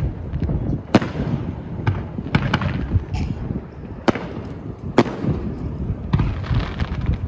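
Fireworks display: aerial shells bursting in a run of sharp bangs, some single and some in close pairs, roughly a second apart, over a steady low rumble.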